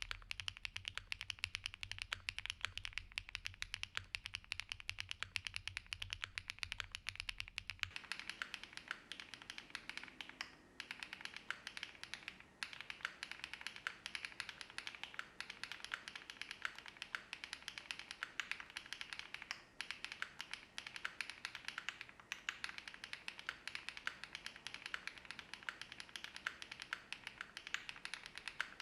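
Fast, continuous typing on a gasket-mounted Qwertykeys QK75N mechanical keyboard with HMX Xinhai long-pole linear switches, an aluminium plate, full foam and GMK keycaps. The keystrokes run as a dense stream of clicks. About 8 s in, a low background hum drops out and the keystrokes take on the sound of the camera's microphone.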